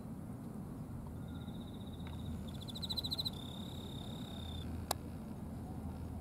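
Insects chirping: high, pulsed trills in short runs, the loudest about three seconds in, followed by a longer steady trill, over a low steady outdoor rumble. A single sharp click about five seconds in.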